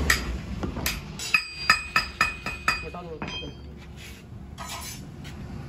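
Metal pieces clinking in a foundry: about six sharp, ringing strikes in quick succession about a second in, followed by a short falling ring, then quieter clatter.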